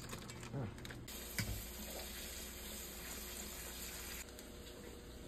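Kitchen tap water running steadily over frozen peas in a stainless steel colander, rinsing them, after a few light clicks near the start; the water stops abruptly about four seconds in.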